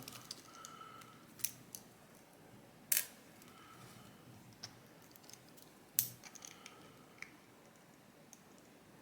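Sparse small metallic clicks and taps of a lock's parts and a small screwdriver being handled during disassembly. The sharpest clicks come about three seconds in and about six seconds in.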